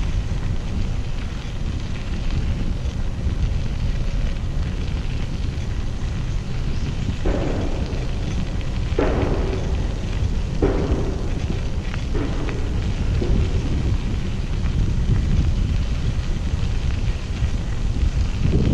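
Wind buffeting the microphone, a steady low rumble. From about seven seconds in, four or five short sounds come through it, about a second and a half apart.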